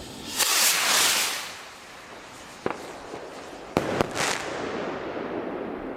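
Two Magnum Apollo firework rockets: a loud rushing hiss as they lift off, then three sharp bangs as they burst between about two and a half and four seconds in, the last followed by a short hiss.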